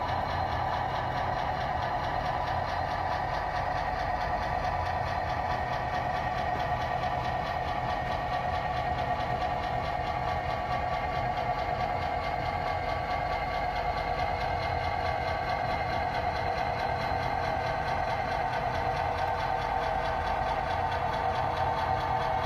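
Model railroad diesel locomotive running with a steady, unbroken engine sound as it shoves boxcars slowly along a siding.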